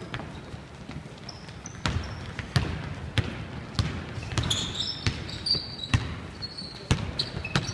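Basketball dribbled on a hardwood gym floor: a string of bounces from about two seconds in, roughly one every half second to second. Short high sneaker squeaks come in between, mostly in the middle.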